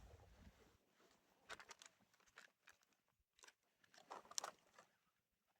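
Near silence broken by a few faint crinkles and crunches, in short clusters about one and a half and four seconds in.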